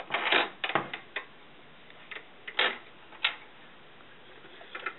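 Glass lenses knocking and clicking against the metal slots of a slide projector's lamp housing as they are fitted back into place. There are a few short knocks in the first second, then single clicks about two and a half and three seconds in.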